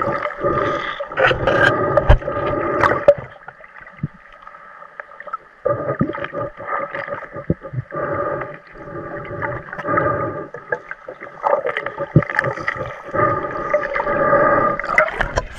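Underwater sound as heard by a camera below the surface: muffled knocks and handling noise over a steady droning hum. The hum drops away for a couple of seconds about three seconds in, then returns.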